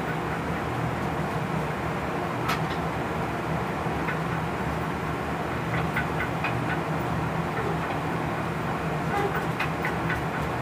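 Running noise heard inside the cab of a DB class 139 electric locomotive on the move: a steady rumble with a low hum, and scattered light clicks, one sharper click about two and a half seconds in.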